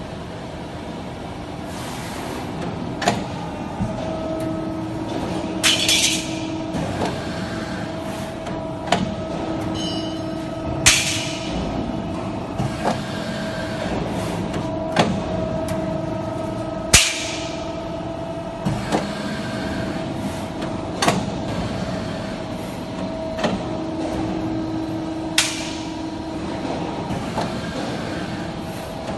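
QC11K hydraulic pendulum shearing machine cycling: a steady hydraulic pump hum with sharp knocks and loud air hisses from its pneumatic clamping and feeding, repeating about every six seconds.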